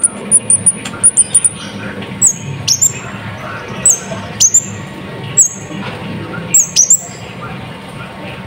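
Brown-throated sunbird (kolibri ninja) singing: a few very high trilled notes at first, then a string of sharp, high calls, each dropping quickly in pitch, repeated about once a second, over a steady low hum.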